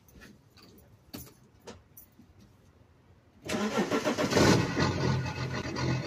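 BMW E60's M57 diesel engine cold-starting, heard at the exhaust: it starts suddenly about three and a half seconds in, is loudest a second later, then runs lumpy. This is the lumpy cold start with a big smoke cloud caused by a failing glow plug module.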